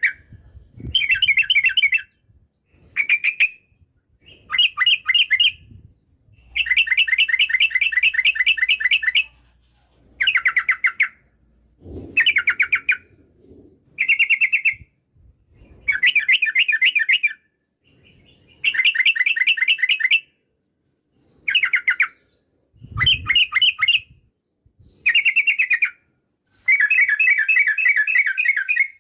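Yellow-vented bulbul (trucukan) singing: a string of short, fast, bubbly chattering phrases, about a dozen in all, each a rapid run of repeated notes, separated by brief pauses.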